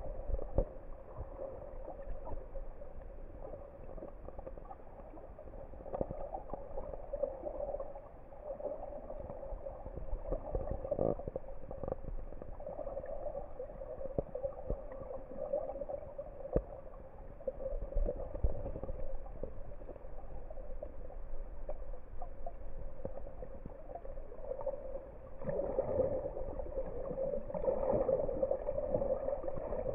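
Muffled underwater ambience through a camera's waterproof housing: a steady dull wash of water noise with scattered clicks and crackles. It grows louder near the end.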